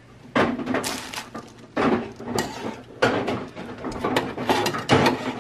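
Metal tongs scraping and clacking against the steel griddle top as seared chicken breasts are lifted off, in several bursts of clatter about a second apart.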